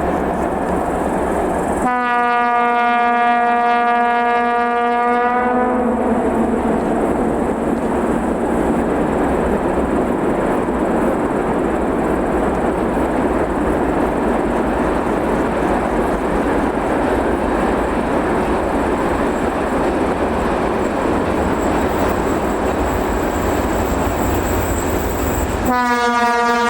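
M62 diesel locomotive sounding its horn in one steady blast of about four seconds, then passing with a loaded freight train: the heavy engine and the rolling wagons make a dense, steady noise. The horn sounds again near the end.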